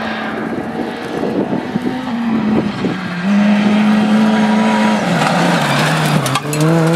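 Rally car engine under hard throttle on a gravel stage, its pitch holding, then dropping in steps and climbing again near the end. A burst of sharp crackles comes near the end.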